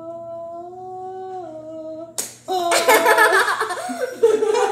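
A person humming one held note that steps up a little and then back down. About two seconds in it is broken off by a sharp slap, and loud voices follow.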